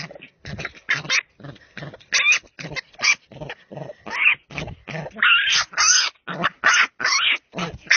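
Wild boar piglet squealing in a rapid run of short cries, two or three a second, with a few longer squeals in the middle, as it is held down by hand.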